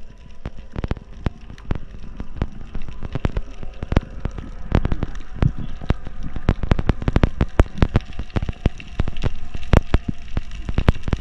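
Underwater crackling: irregular sharp clicks, sparse at first and thickening to a dense crackle from about four seconds in, over a faint steady hum.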